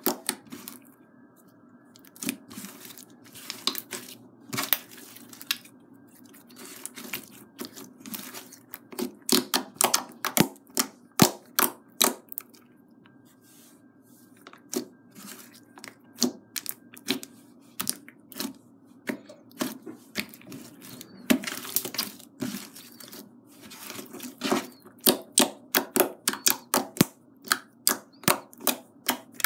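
Glow-in-the-dark slime being stretched, folded and pressed by hand, giving a long run of sharp, irregular sticky pops and clicks. The pops come in quick clusters about a third of the way in and again near the end.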